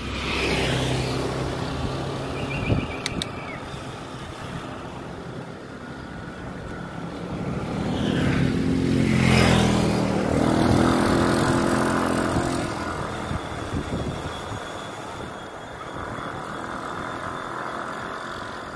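Motor scooters passing on the road: one engine heard at the start, and a louder one coming up and going past about nine seconds in, then fading away.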